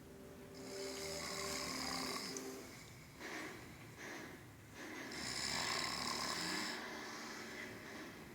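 A man snoring in his sleep: two long snores about four and a half seconds apart, with a quieter breath between them.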